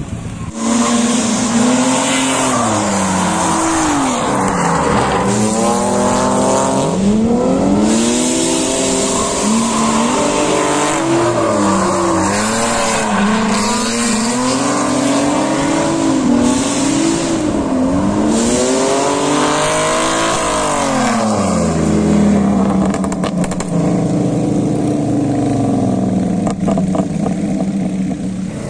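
A drift car's engine revving hard, its pitch rising and falling every few seconds as the throttle is worked, over the continuous hiss and screech of the rear tyres sliding sideways.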